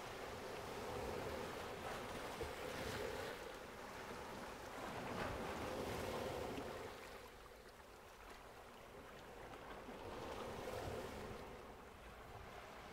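Faint waves washing ashore, the surf swelling and easing in slow surges every few seconds.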